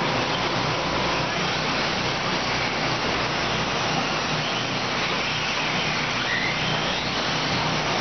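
Electric 1/10-scale 4WD short-course RC trucks racing on a dirt track: a steady whir of motors and tyres over the even noise of the venue.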